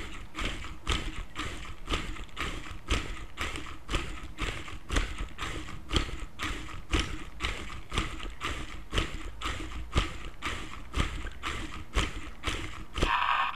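Battery-powered wooden stegosaurus automaton walking: its geared motor turns the legs, and the plywood feet and linkages clack on the laminate floor in a steady rhythm, a louder knock about once a second with lighter clicks between. Near the end the toy's recorded roar starts.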